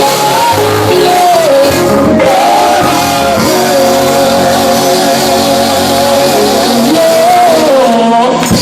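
Gospel group singing in harmony over instrumental backing, several voices holding long notes together.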